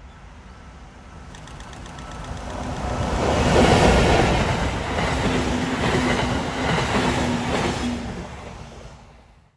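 A train passing close by with clattering wheels on the rails: the sound builds over the first few seconds, stays loud with a steady hum through the middle, then fades as the train moves away.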